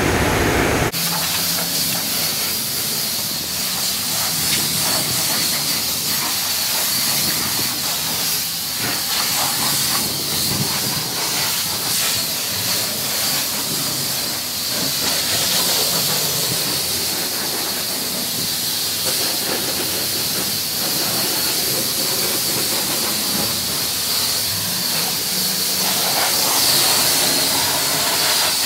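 High-pressure wand of a self-serve car wash spraying water onto a car's front end and the bay floor: a steady, loud hiss that begins abruptly about a second in.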